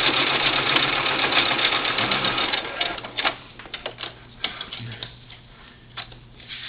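Electric sewing machine running a straight stitch through velcro and fabric, stopping about three seconds in, followed by a few light clicks and taps.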